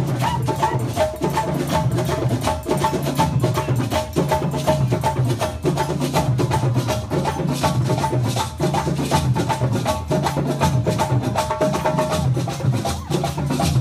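A live djembe drum ensemble playing a fast, steady rhythm of dense hand strikes over low drum notes that step up and down in pitch.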